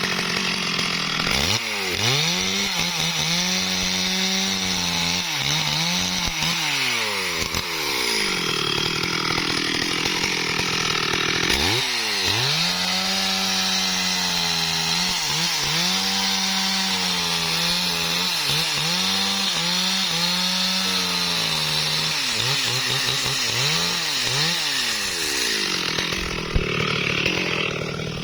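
STIHL MS 382 two-stroke chainsaw cutting wood at high revs. Its pitch sags and climbs back again and again as the chain loads up in the cut. It is throttled up sharply about two seconds in and again about twelve seconds in.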